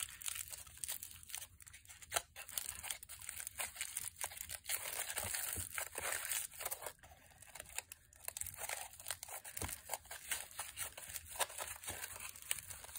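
Aluminium foil crinkling and crackling as hands squeeze and mould it around a small cement casting: an irregular run of dry crackles.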